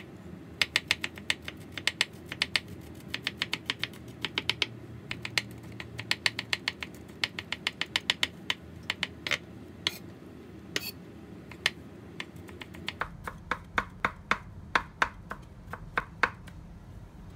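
Chef's knife mincing garlic on a wooden cutting board: quick knocks of the blade on the wood in runs of several a second with short pauses, growing sparser near the end.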